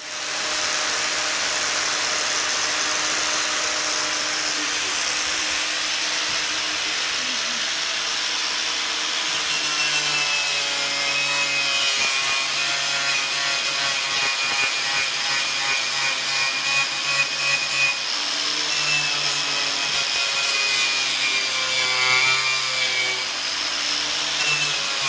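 Angle grinder with a wire brush wheel running steadily against a wall, scouring the surface clean; its pitch wavers slightly as the brush is pressed and moved.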